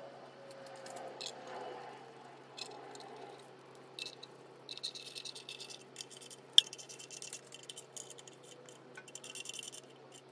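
Small socket ratchet clicking in quick runs as it turns the bolts holding an automatic gearbox's oil strainer in place, with one sharper metallic click midway.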